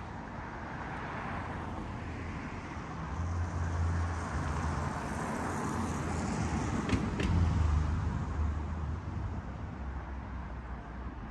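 Cars driving past on a city street: steady engine and tyre noise that swells to its loudest a little past halfway as a car passes close, then eases off. A couple of short clicks come near the peak.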